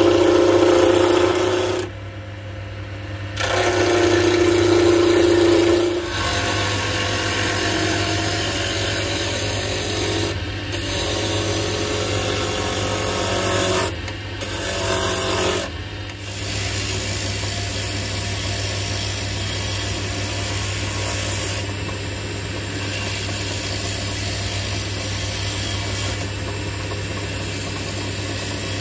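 Draper WTL330A mini wood lathe running with a steady motor hum while a hand-held gouge cuts a spinning spindle of cherry plum, a continuous scraping of tool on wood. The cutting is heaviest in the first six seconds and breaks off briefly a few times where the tool comes away from the wood.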